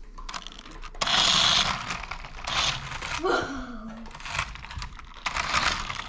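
Sharper Image Phantom Racer remote-control trike's small battery electric motor running in stop-start bursts as the toy drives and spins on a hard wooden floor, its rubber wheels scuffing and clattering on the boards; the loudest burst comes about a second in.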